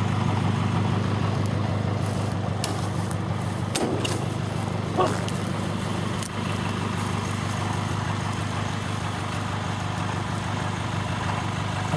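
Truck engine idling steadily: an even, low drone that holds throughout.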